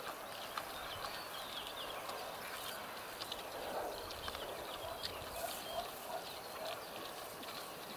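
Sow grunting rhythmically as her piglets suckle, the soft repeated nursing grunts of milk let-down, in a run of about three grunts a second near the end. Short high chirps sound over the top.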